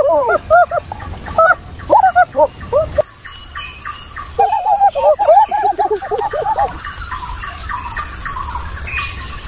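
A chorus of short, bird-like animal calls, each rising and falling in pitch, overlapping in quick runs. The calls pause for about a second and a half a few seconds in, come back, and thin out in the last few seconds.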